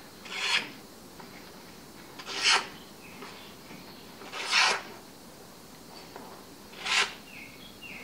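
Freshly sharpened 5160 steel knife blade slicing through a sheet of paper in four strokes, each under half a second and about two seconds apart: a paper-cutting test of the edge's sharpness.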